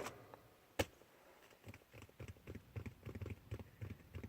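Faint, irregular light clicking and tapping, with one sharper click about a second in.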